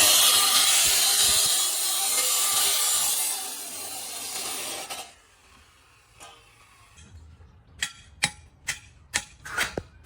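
A power tool runs for about five seconds with a harsh, hissing noise and then stops. Near the end comes a series of sharp knocks, about two a second.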